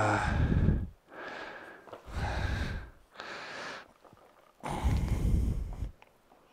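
A man breathing heavily through his nose close to the microphone while straining at a task by hand: three loud exhales about two seconds apart, with quieter inhales between them.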